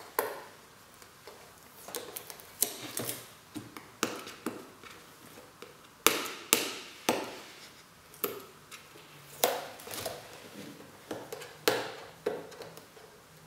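Irregular clicks and taps of fingernails on a cardboard headphone box as its plastic adhesive seals are picked open, with a few sharper knocks as the box is handled.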